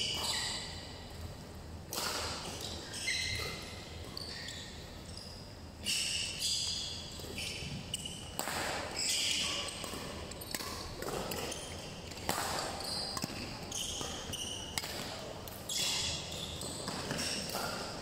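Badminton rally: sharp racket strikes on the shuttlecock every few seconds, with many short high squeaks from court shoes on the mat between them.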